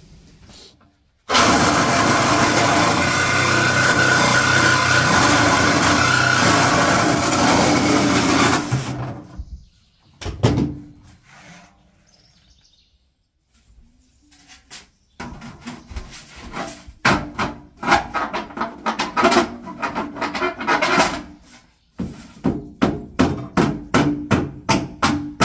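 Cordless jigsaw cutting a round hole through a thin steel stove lid, running steadily for about seven seconds and then stopping. Later come a single knock and then a long run of quick, sharp knocks and scrapes, about three to four a second near the end.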